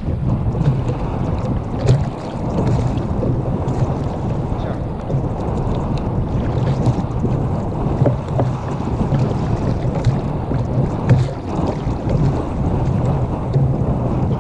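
Wind buffeting the microphone in a steady low rumble, with choppy sea water lapping and slapping against a sit-on-top kayak's hull and a few short knocks scattered through.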